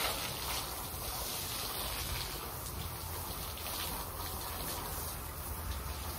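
Pressure-washer spray hitting a glass tabletop: a steady hiss and splatter of water.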